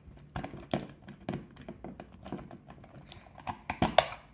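Screwdriver turning out the screw of a plastic battery cover on a toy remote control: a run of small irregular clicks and taps, loudest near the end.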